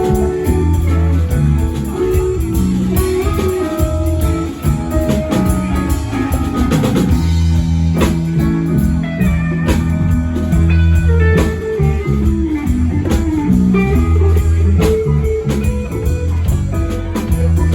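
Band music: guitar melody lines over bass and a drum kit, in a bluesy rock style.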